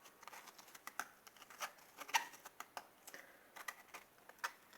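Faint, irregular light clicks and taps of a spoon working crushed ginger in a strainer, pressing out the juice.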